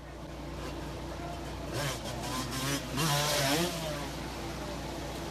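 Dirt bike engine revving hard as it accelerates, its pitch climbing several times with the gear changes, then easing off near the end.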